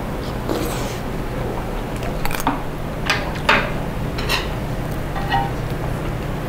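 Metal spoon and chopsticks clinking and scraping against dishes during a meal, with about half a dozen short, sharp clinks through the middle over a steady low hum.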